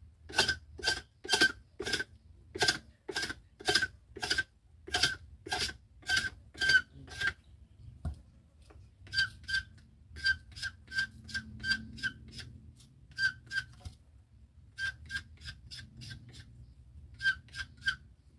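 Sugarcane rind being scraped off with a homemade scraper cut from a hacksaw blade: rhythmic rasping strokes about two a second, each with a squeaky ringing note. The strokes pause briefly about seven seconds in, then resume in shorter runs.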